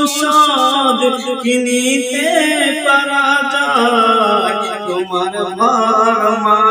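A man singing a Bengali gojol, an Islamic devotional song, solo, in a drawn-out, wavering melody.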